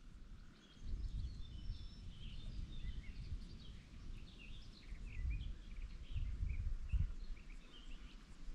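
Songbirds calling and singing, many short high chirps overlapping. Under them a louder, uneven low rumble sets in about a second in and runs underneath.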